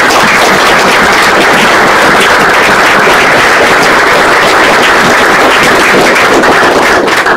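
Audience applauding, loud and close, dying away near the end.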